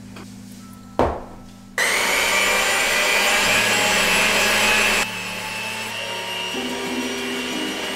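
A handheld electric mixer starts after a short knock about two seconds in and runs steadily, beating eggs and sugar in a glass bowl. It runs quieter from about five seconds in.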